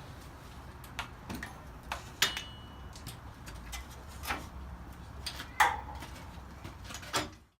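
Scattered clanks and knocks of tools and metal parts being handled during car disassembly, irregular and a few seconds apart, over a faint low hum. The sound cuts off abruptly near the end.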